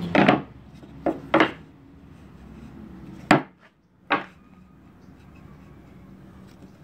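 Loose MDF boards knocking against an MDF shelf unit as a small piece is set in place: five sharp wooden knocks in the first four seconds, two of them close together about a second in, the loudest a little after three seconds.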